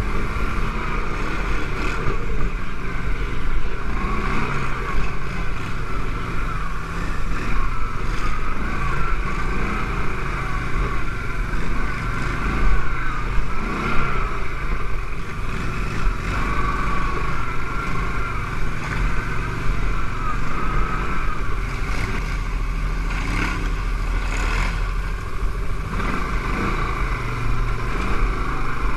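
CFMoto X5 ATV engine running under way through grass, its pitch wavering slightly with the throttle, with a few brief knocks near the end.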